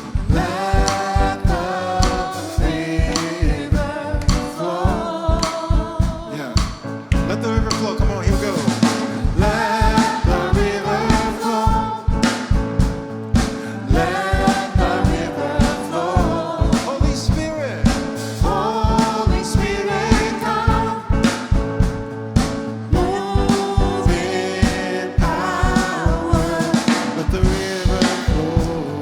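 Live gospel worship band playing with a drum kit keeping a steady beat and voices singing sustained lines.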